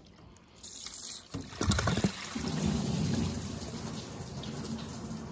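Upper coolant hose of a Duramax L5P diesel being worked off by hand, with a few sharp knocks about two seconds in, then engine coolant spilling out of the opened joint in a steady pour that runs on without a break.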